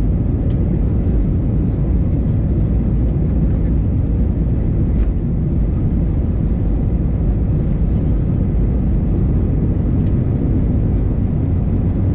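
Airbus A320 cabin noise during the takeoff roll: a loud, steady low rumble of the engines at takeoff power, heard from inside the cabin by the wing.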